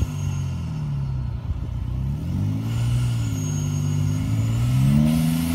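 Supercharged Jeep Wrangler engine revving up and down in repeated swells as the Jeep crawls over a rutted dirt trail.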